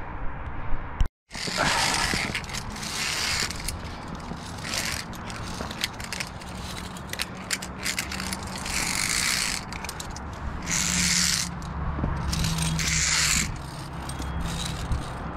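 Via ferrata carabiners sliding and rasping along the steel safety cable in repeated ratchet-like bursts of about a second each, over a steady low hum. The sound drops out for a moment about a second in.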